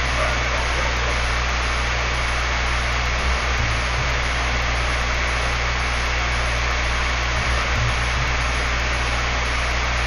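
Steady, even hiss with a low hum underneath, unchanging throughout.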